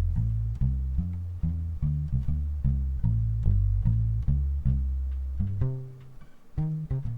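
Ibanez SRH500F fretless bass guitar with tapewound strings and a foam mute at the bridge, played fingerstyle in a walking, upright-style line, about two to three plucked notes a second. The muted notes are short and thumpy, close to the tone of an upright bass played pizzicato. Near the end the line pauses briefly, then comes a few quick short notes.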